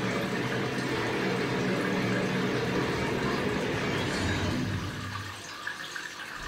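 Steady rush of running water, easing off a little about five seconds in.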